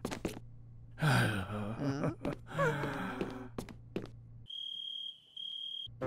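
Wordless cartoon-character voice sounds: a sigh-like sound, then a sliding, wavering cry, with a few sharp clicks. After that comes a steady high electronic beep, broken once briefly.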